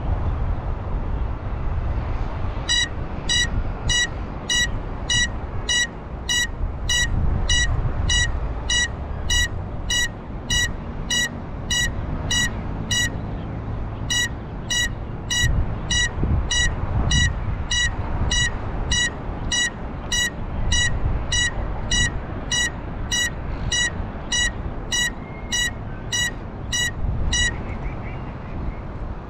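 An FPV quadcopter's onboard buzzer beeping steadily at about two short high beeps a second, with a brief break partway through, while the drone sits on the ground. Wind rumbles on the microphone throughout.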